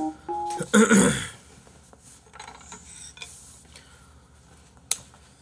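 A short piano phrase ends, then a brief loud throaty vocal noise about a second in. After that come faint tableware handling sounds and one sharp click near the end as chopsticks are picked up at a meal.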